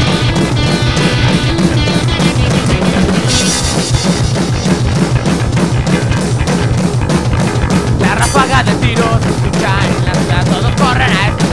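Punk rock band playing at a fast, steady beat on drum kit and electric guitars. A wavering lead melody comes in about eight seconds in.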